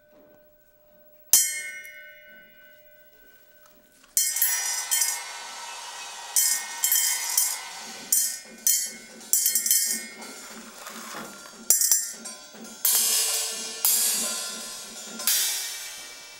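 Cymbals lying on a hard floor being played by hand: one struck about a second in and left ringing, then from about four seconds a long run of jangling, rattling hits, with small metal bits rattling in a small cymbal. The sound dies away near the end.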